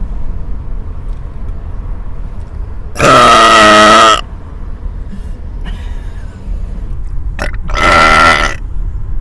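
Two loud, drawn-out human belches, the first lasting about a second and the second shorter, near the end, over the low rumble of a moving car.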